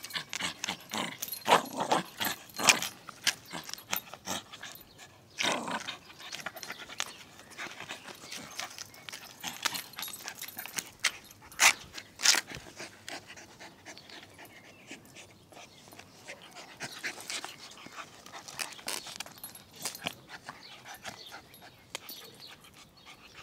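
Dog panting while tugging and worrying at a towel in play. Scattered short scuffs and sharp knocks run through it, the loudest a couple of seconds in and again about twelve seconds in.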